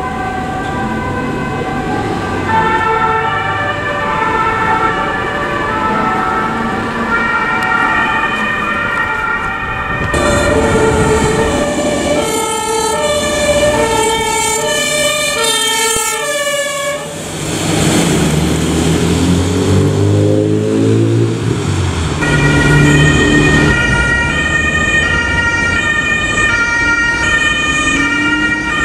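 Two-tone emergency horns of German fire service vehicles, alternating a high and a low note, with several horns overlapping at times over traffic and engine noise. The sound changes abruptly about ten and seventeen seconds in. Between about seventeen and twenty-two seconds a vehicle engine rises in pitch before the two-tone horn returns.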